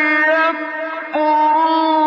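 A solo male reciter chanting the Quran in melodic tajweed style, drawing out long held vowels. He eases to a softer stretch about half a second in, then starts a new held note just after a second.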